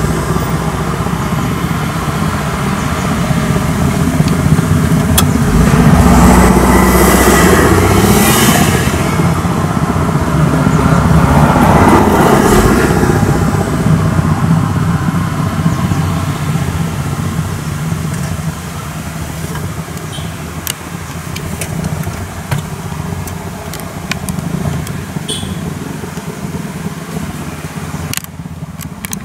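Road vehicle engines running and passing. The sound is louder in the first half and eases off after about eighteen seconds, with a few faint clicks near the end.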